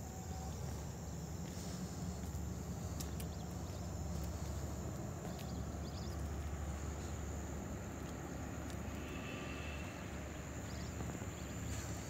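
Outdoor ambience: a steady low rumble with a few faint scattered clicks and a brief high chirp about nine seconds in.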